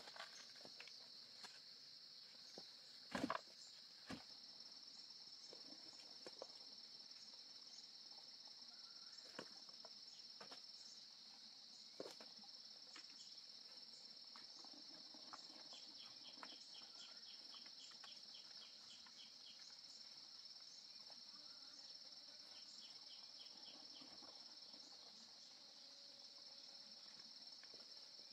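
Steady high-pitched drone of insects in the forest, with scattered knocks and clacks of bamboo stakes being handled, the loudest about three seconds in. A short run of quick ticks sounds midway.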